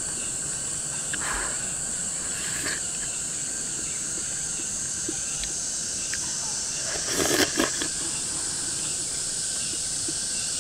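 A steady high-pitched drone of insects, with soft eating sounds: a louder cluster of slurps about seven seconds in as broth is sipped from a ladle.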